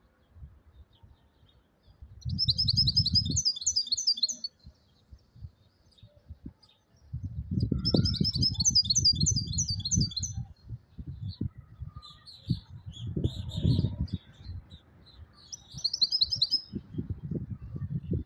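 European goldfinch singing: three bursts of rapid, high twittering song with scattered notes between them. Bursts of low rumbling noise come with the song and are the loudest part.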